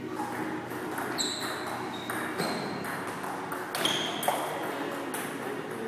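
Table tennis ball rally: a string of sharp, irregularly spaced pocks as the celluloid ball is struck by rubber paddles and bounces on the table, several with a short ringing ping.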